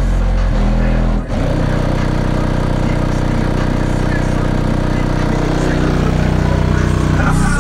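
Hip-hop track played very loud through a car's single 18-inch Crescendo Contralto subwoofer, heard from outside the car, almost all deep bass. There is a short drop about a second in, then one long held bass note.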